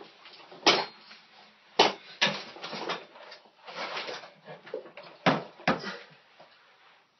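Five sharp knocks, two of them in quick pairs, with rustling and shuffling in between, as a person moves on a weight bench and handles a loaded barbell.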